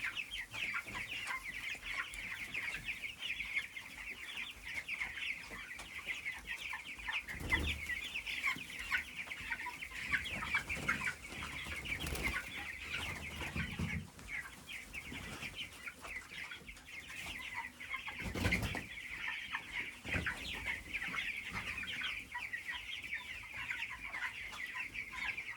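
A large flock of broiler chickens calling all at once in a dense, unbroken high chatter. A couple of low thuds come through, about a third of the way in and again past halfway.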